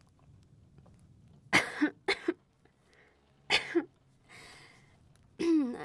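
A woman coughing several times in quick sharp bursts after a swallow of strong liquor, then a breathy exhale and a short groan that falls in pitch near the end.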